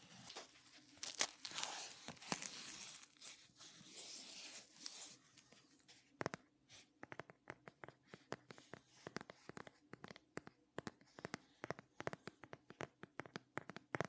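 Fingers scratching and rustling over a clear glitter plastic phone case held close to the microphone. About six seconds in this changes to quick, irregular fingernail taps on the case, several a second.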